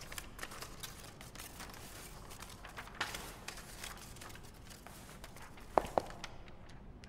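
Faint rustling and light taps of small objects being handled, with two quick clicks close together about six seconds in.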